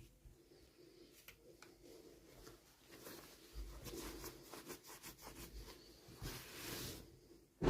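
Faint rustling and small clicks of toy packaging being handled and opened, with a longer rasping rub near the end and a sharp knock at the very end.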